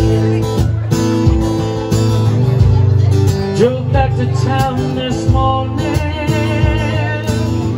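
Acoustic guitar strumming chords live through a PA, with a voice holding a melody line over it between lyrics.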